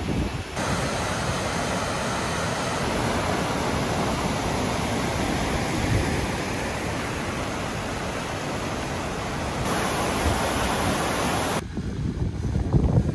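Steady rush of churning white water released through the dam's bottom outlet gate into the outflow channel. Near the end it cuts to a gusty low rumble of wind on the microphone.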